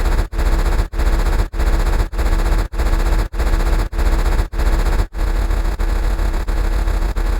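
Loud, distorted noise-like sound effect with a deep rumble, chopped into repeats about every 0.6 seconds; the breaks between repeats fade about five seconds in and it runs on almost unbroken.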